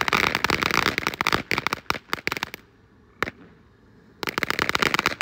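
Ground firework fountain crackling, a dense stream of rapid sharp pops. Midway it falls quiet for about a second and a half, save one pop, then crackles again.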